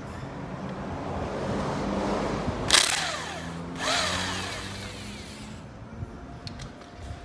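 Pneumatic wrench working bolts on a manual transmission housing, run in two short bursts about a second apart, each trailing off in a falling whine as the tool spins down.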